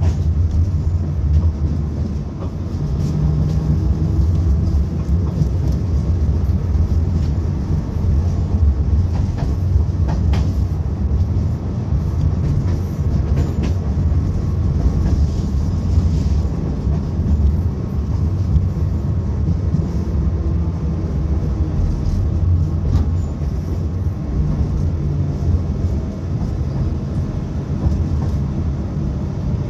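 Belkommunmash BKM-60102 tram running along its track, heard from inside the passenger cabin: a steady low rumble of the wheels and running gear, with a few sharp clicks from the track along the way.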